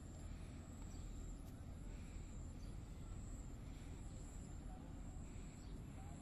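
Faint outdoor ambience: a low steady rumble, a thin high steady whine, and soft chirps about once a second.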